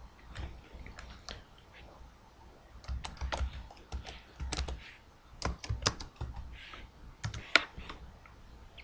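Computer keyboard being typed on: scattered keystroke clicks in short, irregular clusters.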